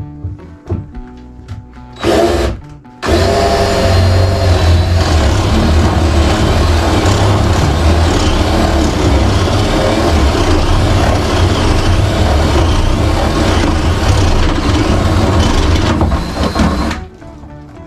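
Cordless drill boring a hole through a wooden wall stud. A short burst comes first, then a steady run under load of about fourteen seconds that stops suddenly near the end.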